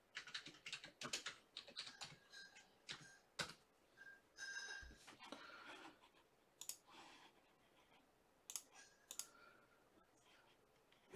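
Faint typing on a computer keyboard: irregular clicks and taps, several a second, thinning out after about nine seconds.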